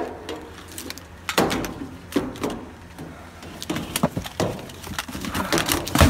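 Scattered knocks and clattering of junk being handled and shifted in a dumpster, hard plastic and wood bumping together, several separate knocks a second or so apart.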